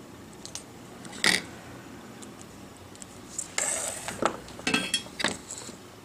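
Small tools and parts being handled on a workbench: a sharp clack about a second in, then a scraping rustle and a few small clicks and clinks.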